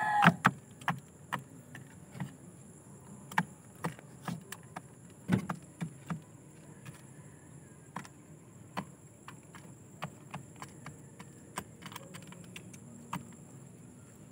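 Pigeon pecking grain from a feed tray: irregular sharp clicks of its beak striking seeds and the tray, one or two a second.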